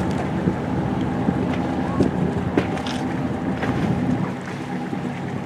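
A boat's engine running steadily with a low, even hum, with wind on the microphone and a few light knocks. The hum drops slightly about four seconds in.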